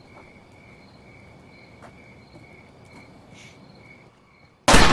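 Crickets chirping in a steady, pulsing high trill, then a sudden loud gunshot near the end.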